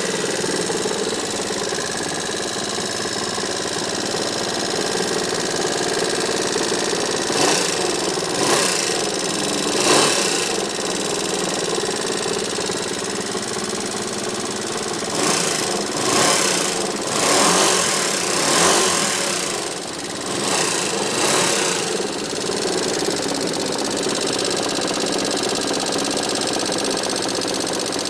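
Yamaha X-MAX scooter's single-cylinder four-stroke engine idling just after starting, with several brief louder swells in the middle that sound like throttle blips. The owner considers the engine noise sick, a sign of a fault.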